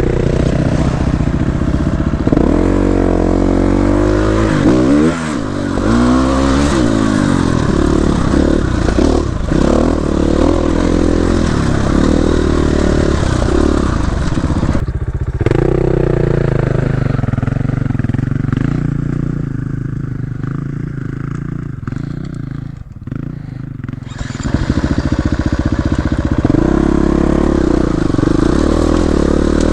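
Dirt bike engine being ridden hard on a rough trail, revving up and down repeatedly as the rider works the throttle through the gears, with rattling from the bike over rough ground. Past the middle the throttle eases off for several seconds, then the engine pulls hard again.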